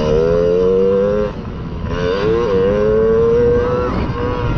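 Mini motocross bike engine revving under throttle, its pitch climbing steadily, dropping back a little over a second in, then climbing again before easing off near the end.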